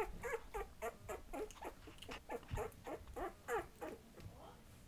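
20-day-old Patterdale Terrier puppies whimpering and squeaking, a quick run of short high calls about four a second that dies away near the end.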